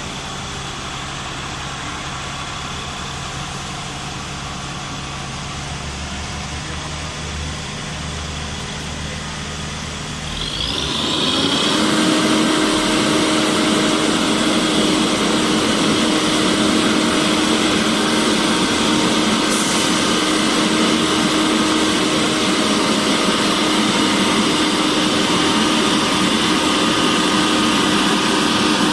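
Heavy road-construction machinery running: a steady, low engine note, then about ten seconds in an abrupt change to a louder machine noise with a steady whine on top.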